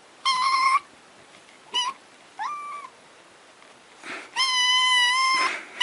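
Cat meowing: four short high meows, one of them rising and then holding its pitch, then one long drawn-out meow near the end.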